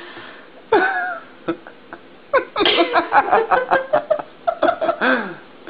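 A cat's meow-like call about a second in, then a run of quick, short laughing sounds, ending with a falling cry.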